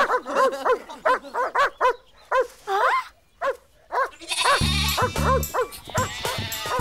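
Cartoon dog barking in a quick series of short barks with a brief whine among them. About four and a half seconds in, background music with a pulsing bass comes in.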